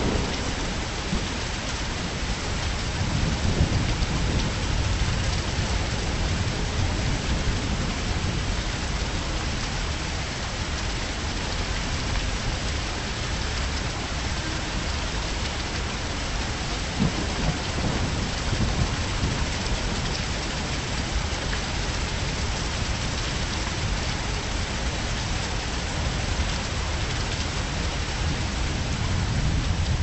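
Steady heavy rain falling, with low rumbles of thunder swelling up a few seconds in, about halfway through and again near the end.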